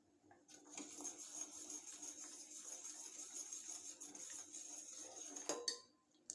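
Pan of dry-ginger milk boiling on a stove: a faint, steady hiss that starts about half a second in and stops suddenly with a click after about five seconds.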